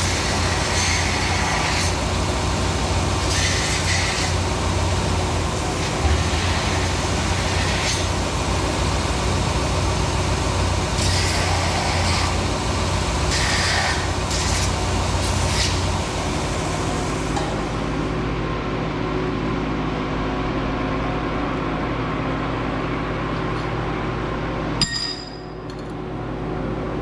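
Welding machine humming with about seven short bursts of welding hiss, a second or so each, as tack welds are laid; the hum stops about sixteen seconds in. A sharp clink of metal near the end, over a steady shop-fan hum.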